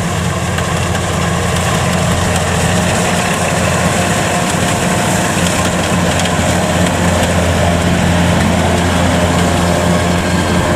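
Kubota DC93 combine harvester running steadily while cutting standing rice: a loud, even diesel engine hum under a dense mechanical rush.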